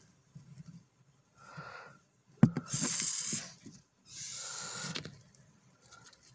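Madagascar hissing cockroaches hissing as they are disturbed: two breathy hisses of about a second each, the first right after a sharp knock of bark being moved, with a fainter hiss before them.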